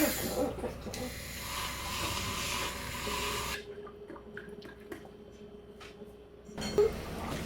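Water running from a tap into a sink, cutting off about three and a half seconds in, followed by a few light clicks and knocks.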